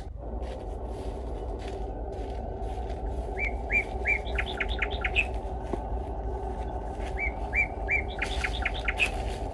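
Small birds chirping in several quick runs of short notes, over a steady low background noise.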